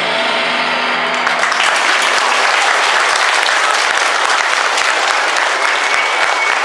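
An audience clapping, swelling in about a second in as the last held notes of a song fade away.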